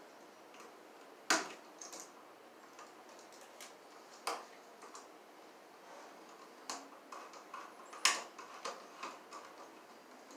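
Scattered sharp clicks and lighter ticks from hand tools working electrical wire and a receptacle: pliers on the wire ends and a screwdriver on the receptacle's terminal screws. The three loudest clicks fall about a second, four seconds and eight seconds in.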